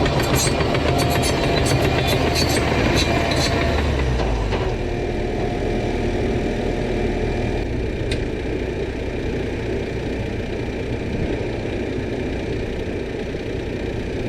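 John Deere 650K crawler dozer's diesel engine running while it clears brush, with sharp cracks and clatter over the first few seconds. At about four and a half seconds the engine note drops lower and the sound settles into a steadier run.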